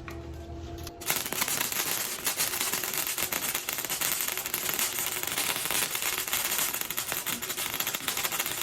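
Flux-core wire welding arc crackling steadily as a bead is run on mild steel. It starts about a second in, after a low steady hum.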